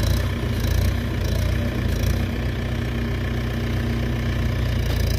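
1988 Eicher tractor's air-cooled diesel engine idling steadily, a low, even rumble with no revving.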